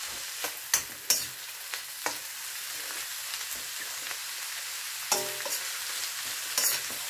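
Vegetables sizzling in hot oil in a wok as they are stirred with a spoon, with scrapes and clicks of the spoon against the pan. About five seconds in, a louder knock on the wok rings briefly.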